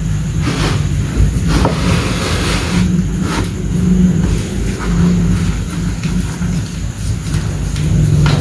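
Chalk bricks crushed and crumbled by hand, with a few sharp crunches and softer crumbling in between. A steady deep rumble underlies it throughout.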